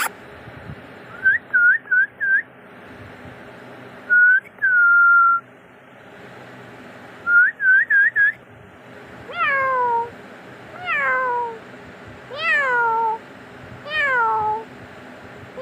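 Kittens calling: a run of short, high, whistle-like squeaks and one held note in the first half, then five meows from about nine seconds in, each falling in pitch and coming roughly every second and a half.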